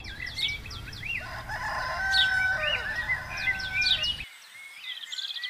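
A rooster crows once, a long drawn-out call, over many songbirds chirping and trilling. A low background rumble cuts off suddenly about four seconds in, and the birds carry on.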